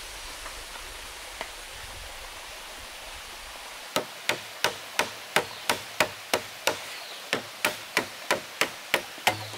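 Machete blade chopping into a green bamboo pole, quick sharp strikes about three a second starting about four seconds in. Before the chopping, a steady rush of running water.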